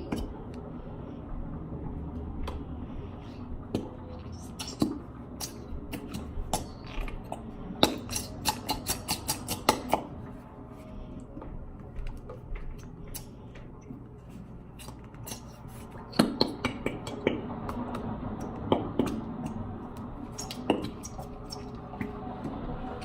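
Irregular clicks, taps and scrapes of containers and a bowl being handled while slime is poured and scraped out, with a quick run of taps about eight seconds in and another cluster later.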